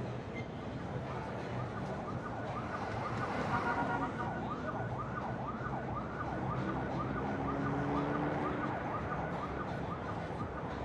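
Emergency vehicle siren in yelp mode, rapid up-and-down sweeps at about three a second, starting about a second and a half in. Steady street hum underneath.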